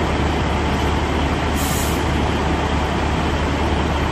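Semi truck's diesel engine running at a low, steady drone, heard from inside the cab as the tractor-trailer backs slowly into a dock.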